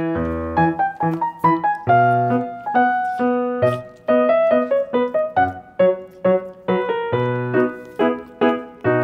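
Background piano music: a light tune of short, quickly repeated notes in a steady rhythm.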